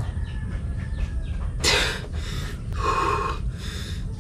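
A man's breathing as he ends a breath hold of about three and a half minutes. About a second and a half in there is a sudden loud exhale, then a quick run of deep recovery breaths, heard over a steady low rumble.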